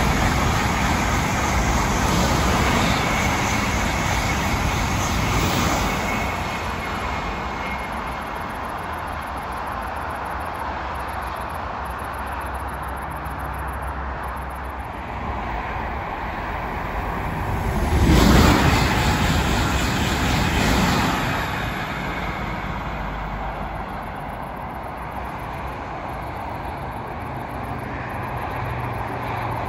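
TGV high-speed train running past at speed and moving away, its rushing noise fading over the first few seconds. A steady hum of distant motorway traffic continues underneath, and about 18 seconds in another loud rushing pass swells up and fades over about three seconds.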